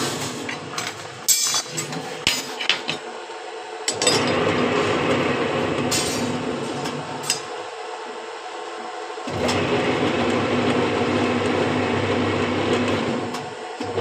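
Metal clinks and knocks from a steel flat bar being handled on a hand-operated scroll bending die during the first few seconds, then a steady machine hum that dips briefly about eight seconds in.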